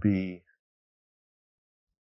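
A man's voice trailing off at the end of a word, then dead silence.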